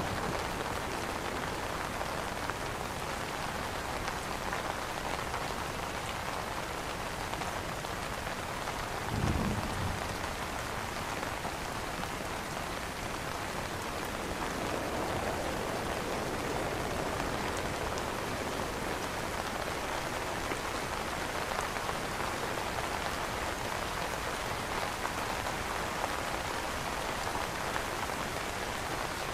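Steady rain pattering on an umbrella canopy. A brief low rumble comes about nine seconds in.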